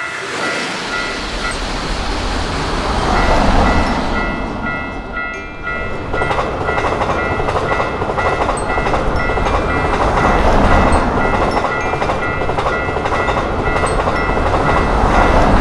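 Japanese railroad crossing bell ringing in a steady repeating ding over the noise of an electric train running past on the rails.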